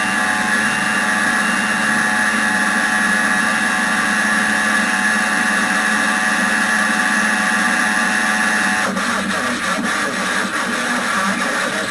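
Loud, steady buzzing noise with hiss from a failed Emergency Alert System broadcast over a TV channel's audio. About nine seconds in it turns rougher, with brief breaks.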